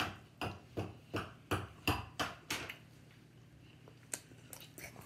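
Open-mouthed chewing of a sticky Rice Krispies treat, the lips smacking in an even rhythm of about three times a second. The smacking stops about two and a half seconds in, and a few faint clicks come near the end.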